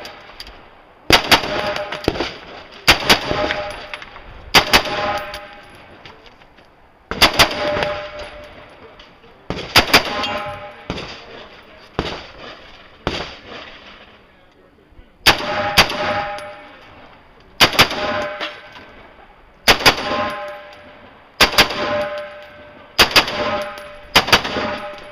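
Rifle fire during a timed practical-match stage: shots mostly in quick pairs (double taps), a pair about every two seconds, with a longer pause a little past the middle. A short ringing follows many of the shots.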